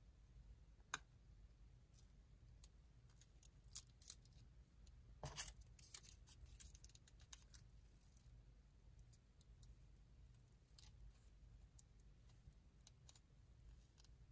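Faint handling sounds of folded origami paper as leaves are pressed onto a paper stem: scattered small clicks and a brief paper rustle about five seconds in, over near silence.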